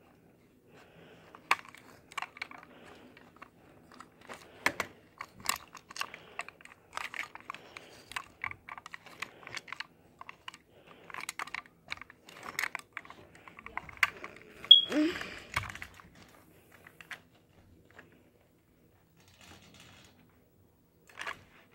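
Hard plastic toy train pieces clicking and rattling irregularly as a toy Thomas engine is handled and turned on a plastic turntable, with a short rising squeal about fifteen seconds in and a quiet spell near the end.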